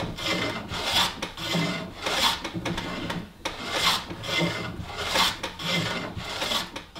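A hand tool working wood in regular back-and-forth strokes, a louder rasping stroke about every second and a quarter with a softer one between.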